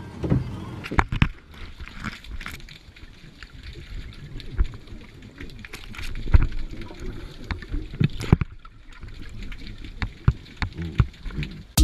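Underwater recording near scuba divers: bubbling and gurgling from a diver's exhaled air, with many irregular clicks and knocks.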